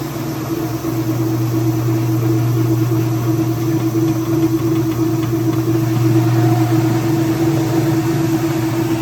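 Older top-load washing machine running, its motor and the drain pump clipped to its front giving a steady hum. The pump has just been cleared of a jammed sock, and the machine is working properly again.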